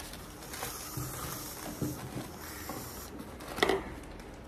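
Dettol disinfectant aerosol spray being sprayed in one long hiss of about two and a half seconds. A sharp click follows about a second later.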